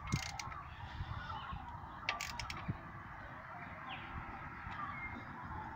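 Socket wrench on a car's thermostat housing bolts: a few sharp metallic clicks near the start and a quick cluster of about five a little after two seconds in. Faint wavering calls sound in the background.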